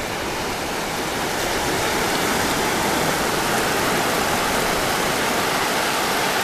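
Wave swash rushing in over wet sand at the surf line: a steady hiss of shallow moving water that swells over the first couple of seconds and then holds.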